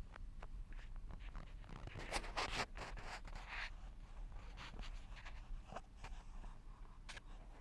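Close rustling and scraping near the microphone inside a car's cabin, over a low steady rumble from the slowly rolling car. The rustling is loudest from about two to three and a half seconds in.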